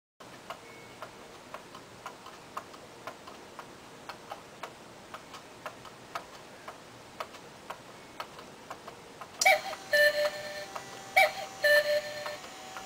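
Cuckoo clock ticking steadily, about two ticks a second. About two-thirds of the way in it starts calling the hour: two-note cuck-oo calls from its pipes, high then low, repeating about every second and a half to two seconds, with two full calls and the start of a third while the ticking goes on.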